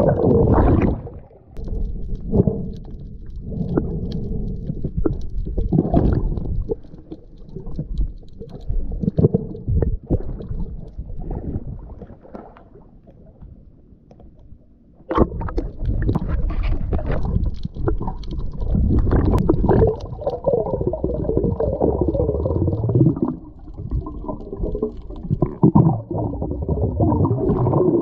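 Muffled water sounds picked up by an action camera in its waterproof housing as a freediver swims, sloshing, bubbling and rumbling. The sound dies down for a few seconds, then returns suddenly and loudly about halfway through as the camera reaches the surface.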